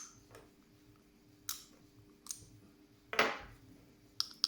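Scattered sharp metallic clicks and clacks from handling an ERA 5-lever padlock and its key, about six in all, with one louder clack about three seconds in.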